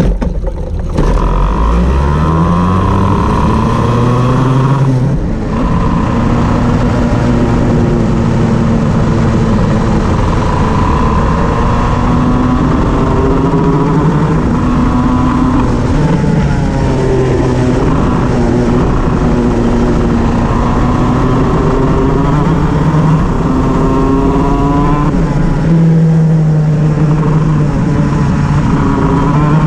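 Shifter kart's two-stroke engine running hard, its pitch climbing in steps at the start, then rising and falling again and again as it accelerates and lifts. The engine has a misfire.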